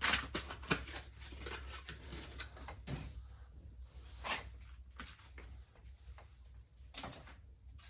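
Scattered light knocks, clicks and rustles of hand tools and a battery's packaging being handled and set down.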